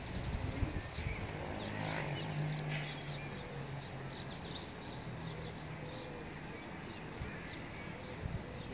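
Small birds chirping repeatedly, with short high calls scattered throughout, over a low steady hum that fades out about two-thirds of the way through.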